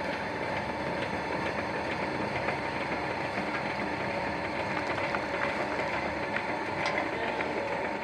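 Vertical flat-die wood pellet mill with a 10 hp electric motor running steadily: a dense mechanical clatter with a faint steady hum and scattered small clicks.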